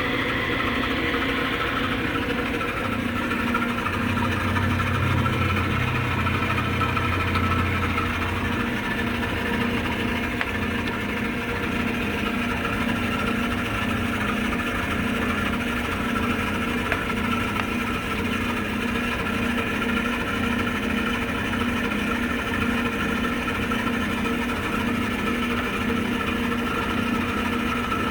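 Clausing 5913 metal lathe running with its spindle in direct drive, driven by its single-phase 1.5 hp motor: a steady mechanical hum with a faint regular pulse. A deeper hum joins for a few seconds about four seconds in.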